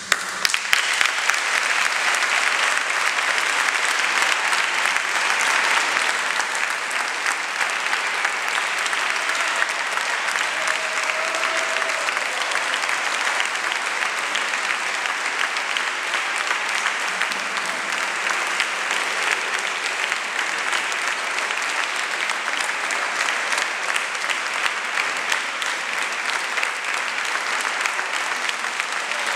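Audience applauding, bursting in suddenly and continuing as steady, dense clapping.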